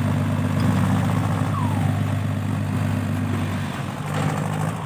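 Heavy vehicle engine idling steadily, a low even running that eases slightly near the end.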